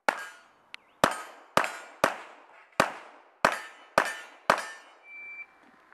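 Eight handgun shots fired in a rapid string, about half a second to a second apart, each a sharp crack that rings out briefly. A short, steady high beep sounds a little after the last shot.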